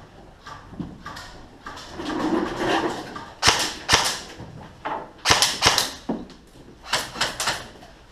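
Airsoft guns firing in short strings of sharp cracks: two shots, then two quick groups of three, each group's shots about a fifth of a second apart.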